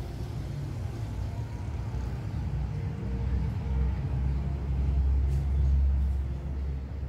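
Low engine rumble of a motor vehicle running nearby, swelling to its loudest about five seconds in and easing off near the end.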